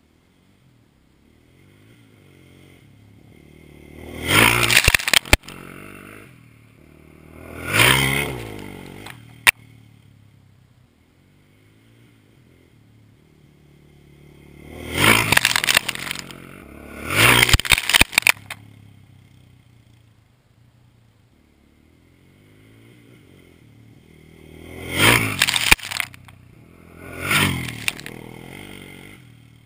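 Yamaha Raptor 660 quad's single-cylinder four-stroke engine revving hard as it rides at and over a dirt jump three times. Each pass brings two loud engine surges a few seconds apart, with a few sharp knocks among them.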